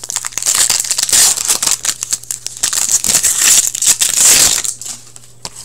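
Foil wrapper of a 2015-16 Upper Deck Series 2 hockey card pack being torn open and crinkled by hand: a dense crackle for about four seconds that dies away near the end.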